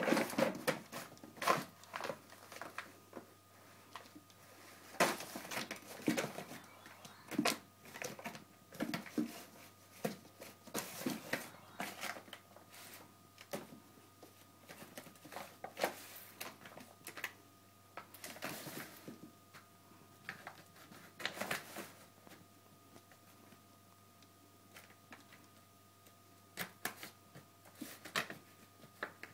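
A plastic shopping bag rustling and crinkling in irregular bursts as two cats paw at it, pounce on it and push into it.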